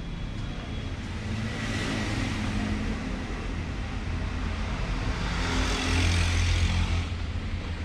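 Motor vehicle engine and road noise: a steady low rumble that swells twice, loudest in the second half.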